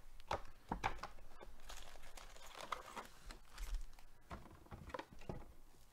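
Trading-card hobby box being opened and its foil card packs pulled out and set down: cardboard scraping and pack wrappers crinkling in short, irregular rustles and taps.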